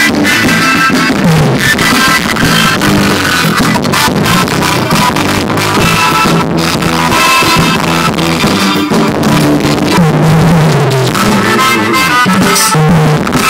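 Music played loud through a car audio system, with a steady beat.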